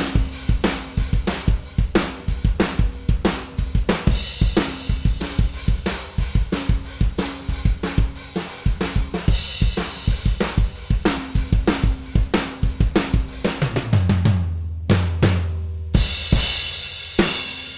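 Acoustic drum kit played live: a steady groove of bass drum, snare and hi-hat or ride cymbal, then a quick fill with a low ringing drum about fourteen seconds in, and two crash cymbal hits near the end that are left to ring out.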